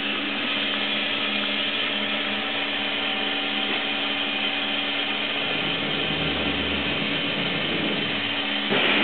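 Sharp SV-2412 CNC vertical machining center running its program in dry run: a steady mechanical whir and hiss as the axes move at rapid, with no cutting. A low hum joins about five and a half seconds in, and a louder sound starts near the end.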